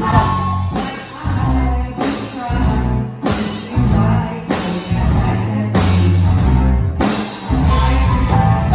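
Live band playing, with a drum kit and bass guitar carrying a heavy, steady beat, and brief breaks in the bass and drums a few times.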